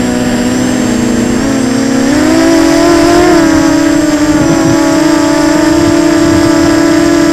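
FPV quadcopter's brushless motors and propellers whining steadily in flight, the pitch rising about two seconds in as the motors speed up, then holding.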